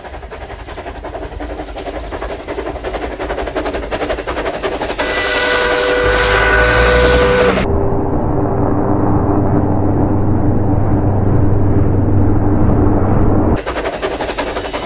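Train rolling over rail joints with rapid clattering, growing louder. About five seconds in, a long steady warning blast on the horn begins. Near eight seconds the sound turns suddenly muffled and deeper, then the clatter cuts back in near the end.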